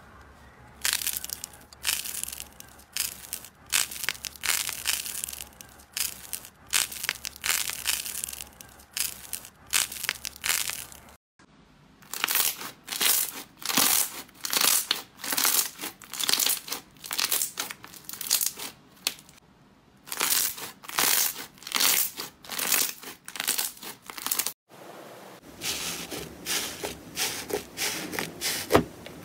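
Hands squeezing slime and squishy stress balls: repeated crackling, squelching pops, each a second or less long, in three runs split by two short silences. The first run is stress balls made to pop when squeezed; the last, softer and steadier, is crunchy foam slime being pressed.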